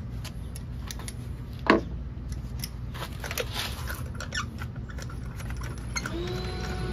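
Irregular small metallic clicks and ticks of a socket wrench and extension working loose spark plugs out of a car engine's cylinder head, with one short, louder squeak falling in pitch about two seconds in. A steady hum starts near the end.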